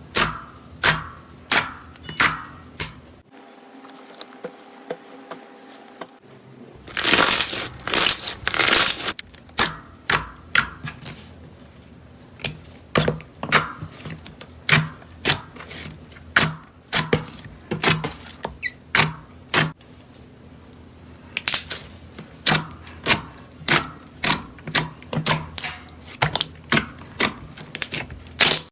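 Slime being pressed and poked by hand, giving a long series of sharp popping clicks, about one or two a second, with a brief denser crackling run about a quarter of the way in.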